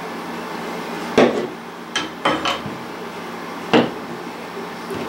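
Four sharp clacks of hard antler pieces and a glue bottle knocking together while Gorilla Glue is applied to a broken elk antler tine, over a steady background hum.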